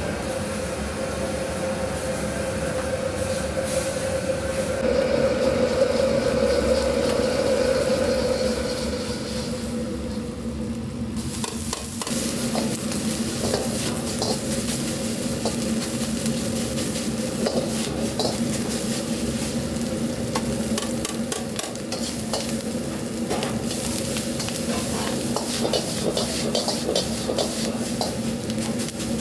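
Egg fried rice stir-fried in a wok over a gas burner: the metal ladle scrapes and clanks against the wok in quick irregular strokes over steady sizzling and a low steady kitchen hum. Before that, for roughly the first ten seconds, only the steady hum of the kitchen.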